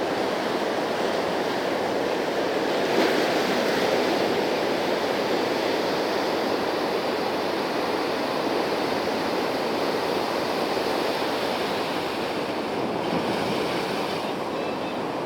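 Sea surf washing steadily against the shore, swelling a little about three seconds in.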